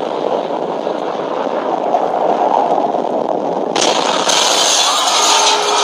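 A steady, loud rushing roar of noise, a nuclear-blast sound effect. A brighter hiss joins it almost four seconds in.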